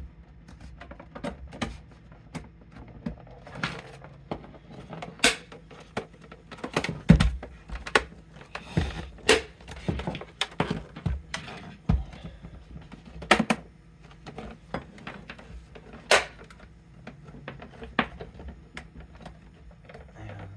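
Plastic housing halves of a Nespresso coffee machine being squeezed together by hand, their snap clips clicking into place. The clicks and knocks come irregularly, the loudest about 7, 13 and 16 seconds in.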